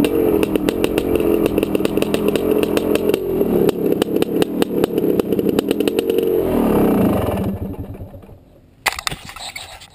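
Honda CR500 two-stroke single-cylinder dirt-bike engine under way, its pitch rising and falling as the throttle is worked, with rapid crackles through it. About seven seconds in the revs die down and the engine fades, followed by a sharp knock near the end.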